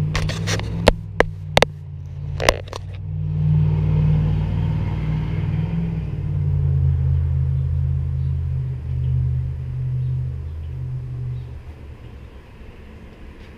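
A car engine running, a low drone that swells about three seconds in and fades away near the end. A few sharp clicks or knocks come in the first couple of seconds.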